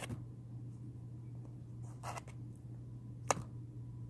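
Slime being handled, giving a few short soft clicks and squishes: one about two seconds in and a sharper click a little after three seconds, over a steady low hum.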